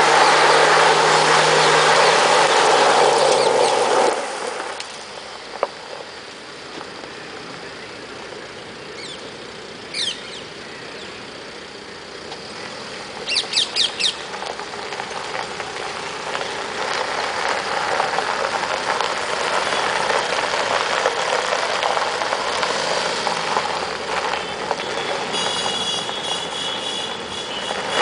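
Tata Safari Storme SUV's diesel engine running hard with tyres scrabbling on loose dirt as it is spun in circles, loud for the first four seconds, then dropping away and building again through the second half. A few short chirps come about halfway through.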